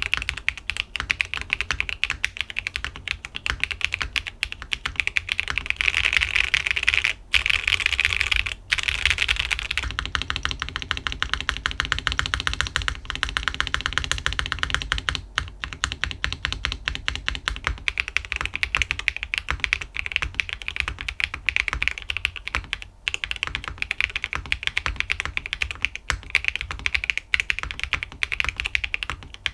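Typing sound test on a Sonnet keyboard fitted with Clackbits full-POM linear switches (POM housings and 13.9 mm POM stem) on an aluminium plate with no foam: a fast, continuous run of key clacks. The stock and lubed-stem switches are both typed on, with a few brief breaks where the test cuts from one to the other.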